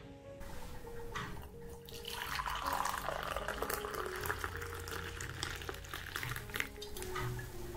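Water running from a tap into a sink, a steady rush that starts about half a second in.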